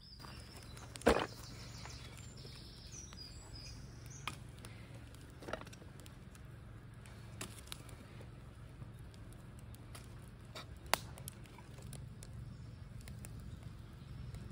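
Wood fire crackling in a steel fire pit, with sharp pops every second or two and a louder knock about a second in. Birds chirp faintly near the start.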